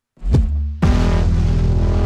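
Electronic pop music with deep bass: after a brief silence, a low falling bass hit, then a loud, dense passage starting just under a second in.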